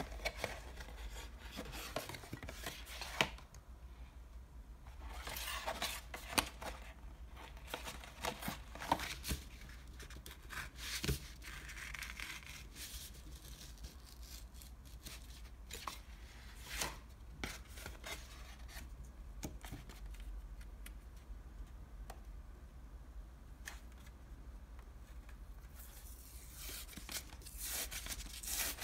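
Thin paperboard from an ice cream box being handled, torn and creased by hand: scattered crisp rustles, taps and tearing sounds, busier near the end.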